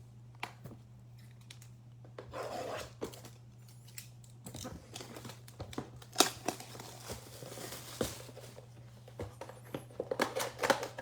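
Donruss basketball mega box being unwrapped and opened: plastic wrap crinkling and cardboard tearing, with scattered sharp snaps and rustles.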